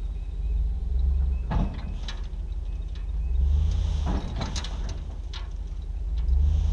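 Vehicle engine running steadily while a dump trailer unloads a load of soil and mulch, with knocks and rattles from the trailer and bursts of hiss as the load slides out.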